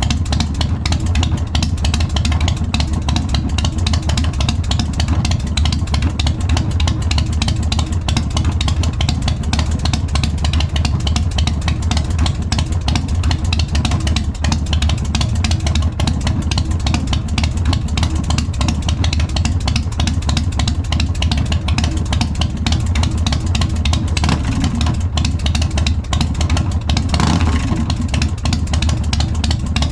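Big Dog motorcycle's big-twin V-twin engine with a 585 cam, running at a steady idle through its exhaust with an even, deep pulse.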